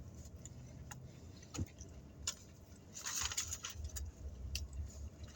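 Someone eating a cheeseburger close to the microphone: faint clicks and mouth sounds, then a louder crackling stretch about three seconds in, from the burger being bitten and chewed or its wrapper handled, over a low steady hum.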